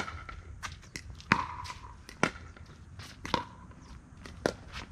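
Pickleball rally: paddles striking the hollow plastic ball, five sharp pops a little more than a second apart, each with a short ringing ping, with fainter ticks in between.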